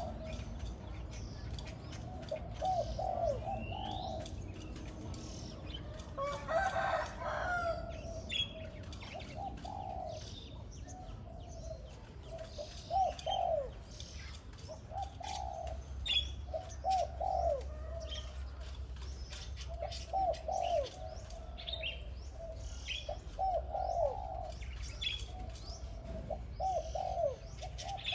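Decoy spotted dove cooing: phrases of low, hooting coos repeated every couple of seconds, with small birds chirping higher up. A brief louder, rougher sound about six to seven seconds in.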